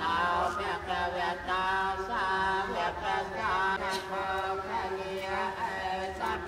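A group of voices chanting a Buddhist prayer together, in long held notes that glide from one pitch to the next, phrase after phrase.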